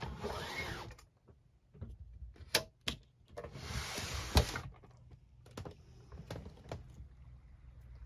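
Rustling handling noise with a few sharp clicks and knocks, the loudest a latch click about four seconds in as the RV's door is opened, then faint ticks over a low steady hiss.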